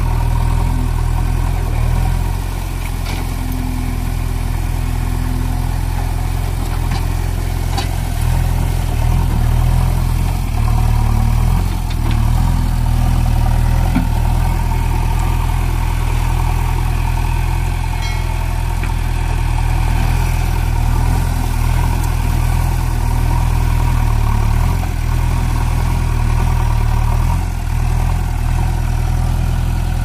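JCB 3DX backhoe loader's diesel engine running steadily at a low idle-like pitch while the machine works in river water, with a few faint clanks.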